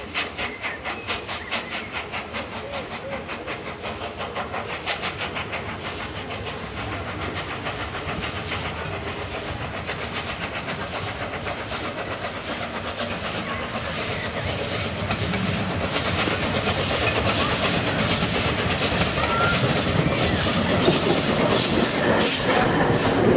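LNER Peppercorn A1 Pacific steam locomotive 60163 Tornado, a three-cylinder engine, approaching and passing at slow speed: regular exhaust chuffs, about three a second, with steam hissing from the cylinders. It grows steadily louder as it draws close.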